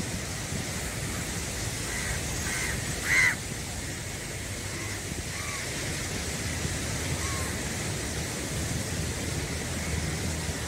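Steady wash of surf and wind. A bird calls three short times about two to three seconds in, the third call the loudest, with a few fainter calls later.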